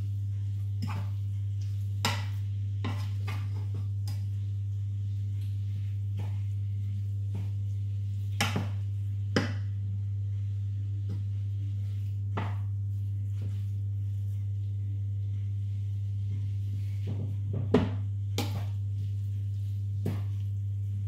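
Wooden spoon stirring a minced-meat sauce in a frying pan, with scattered knocks and scrapes of the spoon against the pan over a steady low hum.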